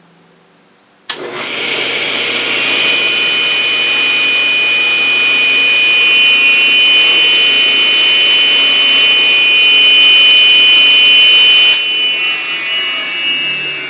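Powermatic table saw's capacitor-start motor switched on with a click about a second in. It comes up to speed at once and runs steadily with a high whine, then is switched off with a click near the end and begins to wind down. It starts cleanly with the replacement start capacitor fitted, the old start capacitor having gone bad.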